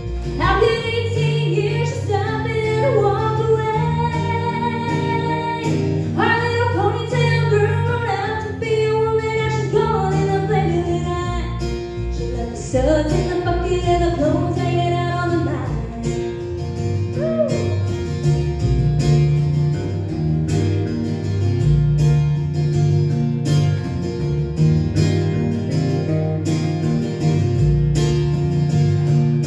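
Live country music: a woman singing while strumming an acoustic guitar, backed by an electric guitar and a steady bass line.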